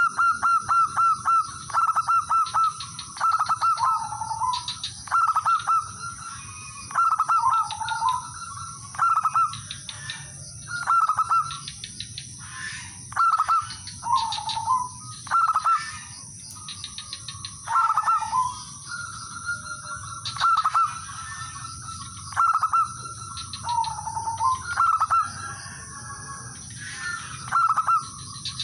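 Male zebra dove singing over and over: phrases of rapid staccato cooing notes, each ending in a lower rolling coo, repeated every second or two.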